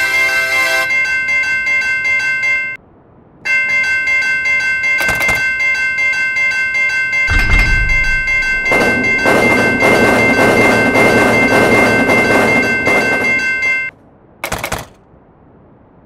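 Railroad crossing warning bell ringing in a fast, steady repeated pattern, with a brief break about three seconds in. From about seven seconds in, a rumbling rush of noise, like a passing train, lies over the bell, and the bell stops about fourteen seconds in.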